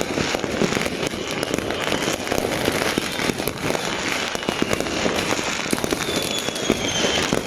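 Fireworks and firecrackers going off in a dense, continuous crackle of pops and bangs.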